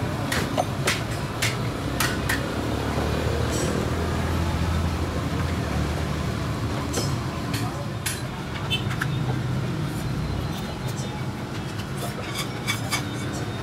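Stacks of thin pasted lead battery plates clinking and rattling as they are handled and set into plastic crates, a scatter of sharp clicks over a steady low background rumble.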